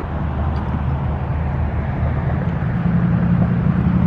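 Low engine rumble of a motor vehicle running nearby, growing gradually louder.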